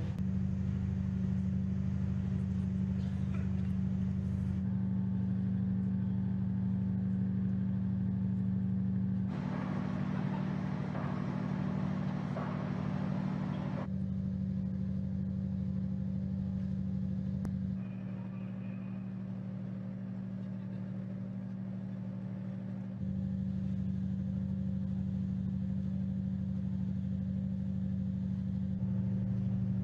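Steady low drone of ship engines or generators on moored warships, its pitch and level shifting abruptly at each change of shot, with a stretch of louder hiss about ten seconds in.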